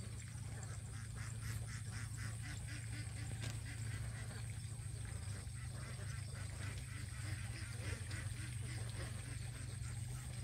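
A flock of domestic ducks quacking, many short calls in quick succession and densest in the first few seconds, over a steady low hum.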